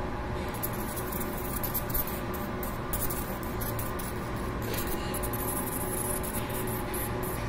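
Laser marking machine engraving the black coating of a stainless-steel thermos: an irregular high hiss and crackle of the beam ablating the surface, starting about half a second in, over the machine's steady hum.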